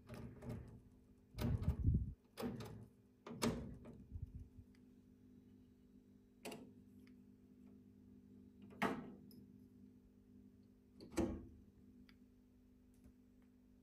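Clicks and knocks of the switches, knobs and sockets of a vintage valve tester being handled: a quick irregular cluster in the first few seconds, then three single clicks a couple of seconds apart. Under them runs a steady low electrical hum from the switched-on tester.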